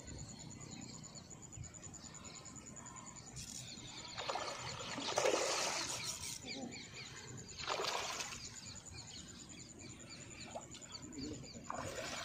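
Large hooked rohu carp splashing and thrashing at the surface near the bank, in bursts: the longest and loudest about four to six seconds in, a shorter one near eight seconds, and another near the end.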